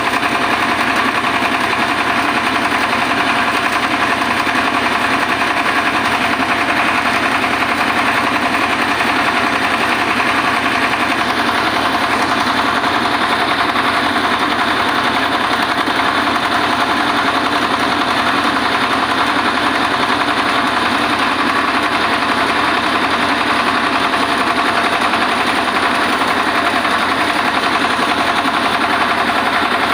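Diesel-driven mobile rice mill (huller) running steadily, its engine and milling machinery making a loud, continuous, fast-vibrating mechanical noise.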